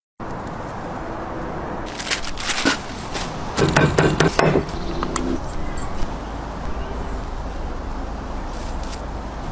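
Kitchen handling noises: a few sharp clicks and scrapes about two seconds in, then a short voice-like sound about four seconds in, over a steady low hum.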